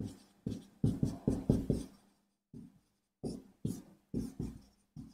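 Marker pen writing on a whiteboard: a run of short strokes, a pause of about a second midway, then more strokes.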